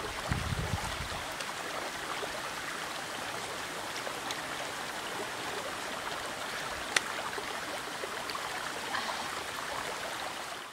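Shallow stream trickling steadily over rocks. A brief low rumble in the first second, and a single sharp click about seven seconds in.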